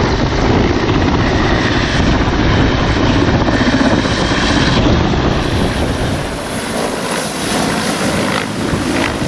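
Helicopter taking off close by: rotor and engine noise with strong rotor downwash buffeting the microphone. About six seconds in the low rotor rumble falls away as it climbs off, leaving mostly wind noise.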